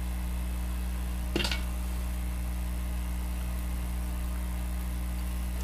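Steady low electrical hum of room tone, with one short sharp click about a second and a half in.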